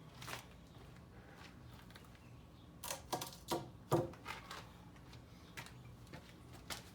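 Workshop handling noise: a light click near the start, then a quick run of sharp clicks and knocks about three to four seconds in.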